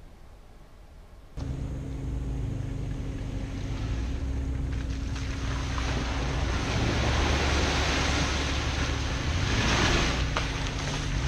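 An off-road 4x4's engine running at a steady pitch, with a rushing, splashing noise that builds over several seconds and is loudest near the end. The sound cuts in suddenly about a second and a half in.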